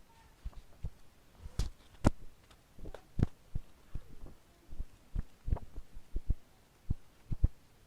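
Pages of a book being flipped and handled: irregular soft thumps and taps, several a second, with a few sharper, louder page flicks in the first half.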